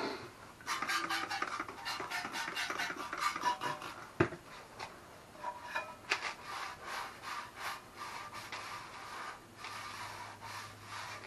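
A cloth scrubbing back and forth over the dirty steel muffler of an old Yamaha Grizzly 660 OEM exhaust, wiping off mud. The strokes come in an irregular run.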